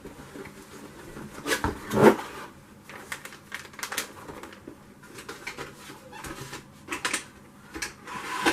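Scattered light clicks, taps and small knocks from hands handling computer parts, with one louder knock about two seconds in and a quick run of clicks near the end.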